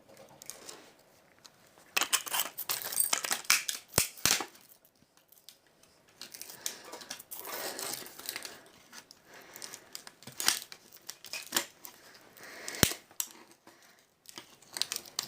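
Hard metal and plastic parts of a small Samsung phone being pried and scraped apart with a hand tool: irregular scraping and crackling, with sharp snaps about 4 seconds in and again near the end as a piece gives way.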